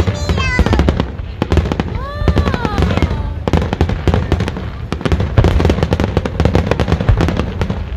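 Fireworks display in a rapid barrage: many shells bursting close together, the bangs and crackling running almost without a break. A few pitched sounds sliding up and down rise over the bangs, most plainly about two seconds in.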